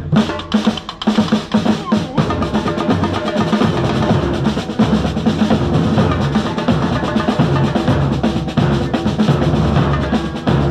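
Street drum band playing a fast, dense rhythm on several large marching bass drums struck with mallets, along with a snare drum.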